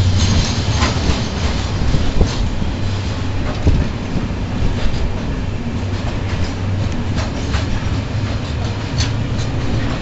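Ore freight train's covered hopper wagons rolling past close by: a steady rumble with wheels clicking over rail joints every half second to a second.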